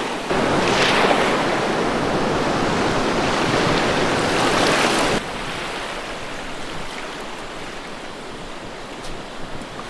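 Surf washing onto a beach: a steady hiss of small waves, with a wave swelling and breaking about a second in. About five seconds in it cuts off abruptly to a quieter, softer wash of surf.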